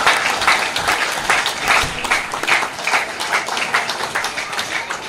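Audience applauding, a dense run of many hands clapping that eases off at the very end.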